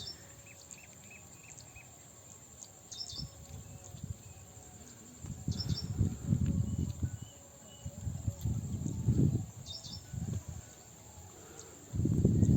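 Insects buzzing steadily at a high pitch, with short bird chirps: a quick run of five about half a second in, then a few higher calls spaced a few seconds apart. Low muffled rumbles come and go from about five to ten seconds in and again near the end, and these are the loudest sound.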